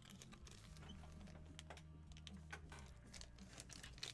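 Near silence: faint scattered light clicks and soft rustles of handling, over a steady low hum.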